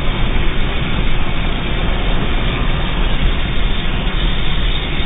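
Flamethrower's flame jet burning with a steady, loud rushing noise.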